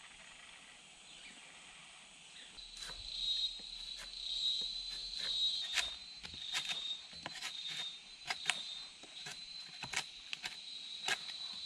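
Jungle insects buzzing with a steady high tone that comes in about two and a half seconds in. Over it runs a string of sharp clicks and snaps, about one or two a second.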